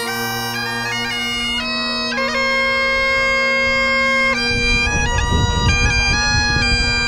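Bagpipes played solo, a steady drone under a chanter melody that moves from note to note. From about halfway through, wind buffets the microphone.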